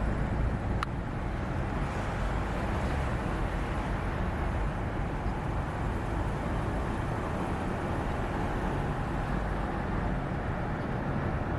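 Steady low rumbling road noise of a vehicle on the move, with one faint click about a second in.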